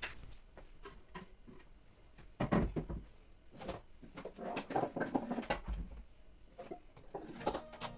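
Irregular small knocks, clicks and rubbing from wiping down kitchen surfaces with a damp cloth.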